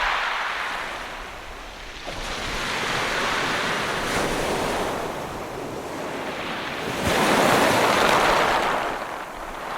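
Ocean surf: waves breaking and washing back in a hiss that swells and ebbs several times. The loudest wave breaks suddenly about seven seconds in and fades near the end.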